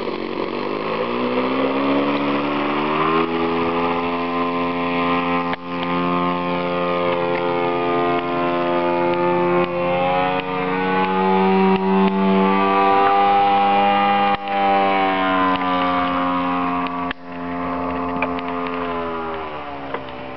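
Model airplane engine running at high revs as the plane flies, its whine climbing in pitch over the first few seconds, then holding high with slow rises and falls in pitch and a few brief dips in loudness, and falling in pitch near the end.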